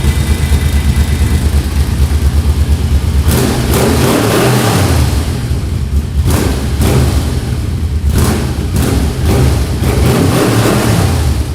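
Yamaha VMax's V4 motorcycle engine running with a fast low pulse, then about three seconds in revving and accelerating, its note rising and falling several times.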